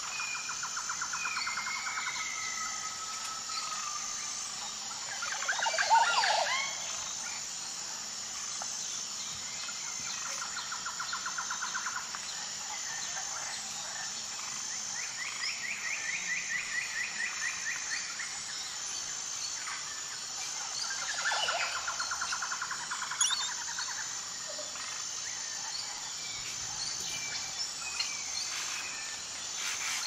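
Birds calling in a nature soundscape: repeated short rapid trills and whistled notes, with a louder sweeping call about six seconds in and again near twenty-one seconds, over a steady high-pitched chirping of insects.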